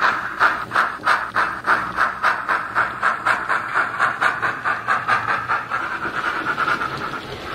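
Steam exhaust chuffs of a BR Standard Class 4MT, played by a Howes DCC sound decoder through a 24mm bass-enhanced speaker in the tender of a Hornby model locomotive. A steady beat of about four chuffs a second, quickening slightly and fading as the train draws away.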